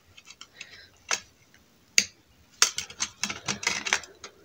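A DVD being pressed onto the plastic centre hub of a disc case, with sharp plastic clicks and taps: one click about a second in, another at two seconds, then a quick run of clicks in the second half.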